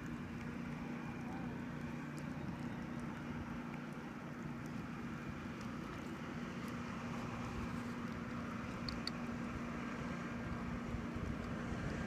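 A motorboat's engine droning steadily across the water, with wind rumbling on the microphone.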